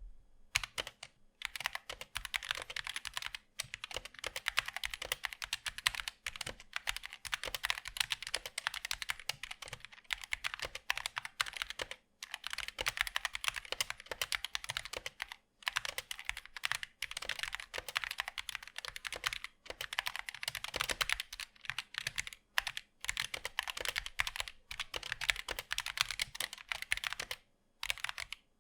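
Zet Blade Optical mechanical keyboard with Kailh Optical Black linear switches and ABS double-shot keycaps being typed on quickly and continuously, a dense run of key clacks broken by a few short pauses.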